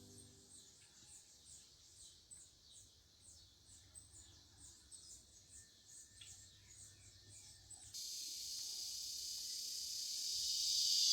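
Faint, rapid high chirping, evenly repeated several times a second, over a quiet background. About eight seconds in, a high hiss starts suddenly and grows steadily louder.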